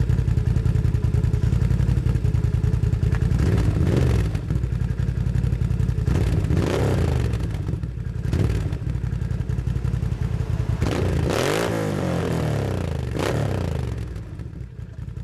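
Can-Am Renegade ATV engine running through its home-built custom exhaust, idling with about five quick blips of the throttle, each rising and falling back. It settles quieter near the end.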